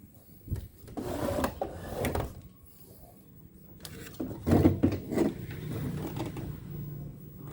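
Irregular knocks, clicks and scraping of tools and parts being handled on a workbench, in several clusters, with a faint steady hum in the last couple of seconds.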